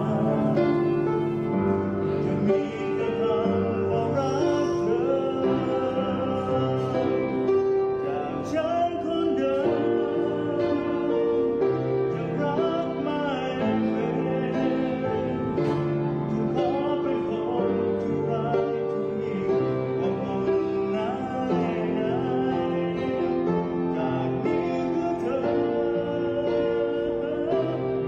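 A man singing a song while accompanying himself on an upright piano.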